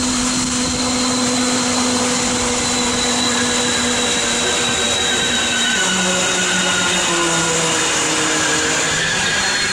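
Regional train running at speed, heard through an open carriage window: a steady rush of wind and rolling noise with steady whining tones. The lowest tone drops to a lower pitch about six seconds in.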